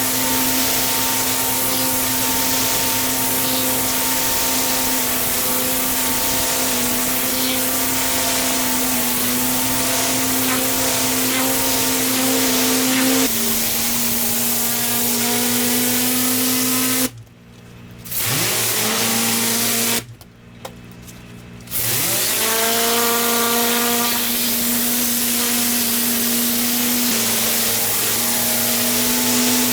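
Pressure washer running steadily, its motor hum under the hiss of the water spray. About two-thirds of the way through it drops out twice, briefly, and each time rises back up in pitch.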